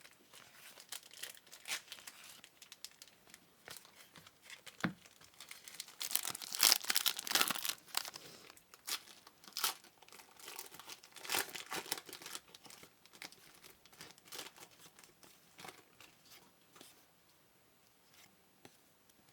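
Trading card pack wrappers being torn open and crinkled, with crackling strokes throughout and a longer, louder stretch of tearing and crinkling about six to eight seconds in.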